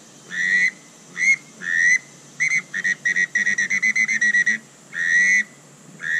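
Five-in-one duck whistle blown with a hummed, vibrating voice: mallard drake whistles. Several separate buzzy whistled notes, then a quick run of short peeps, then a longer note near the end.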